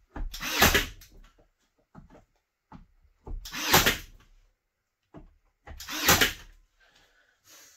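Cordless brad nailer firing three times, about two and a half seconds apart, each shot lasting under a second, driving nails through wooden window casing.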